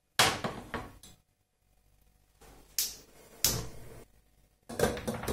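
A stainless steel saucepan of water and pumpkin is set down on a glass-top stove with a sharp knock just after the start, followed by a few more separate clicks and knocks as the burner is switched on.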